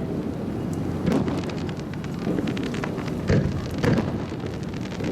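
Aerial fireworks bursting: deep booms about a second in and twice more a little after three seconds, over steady crackling.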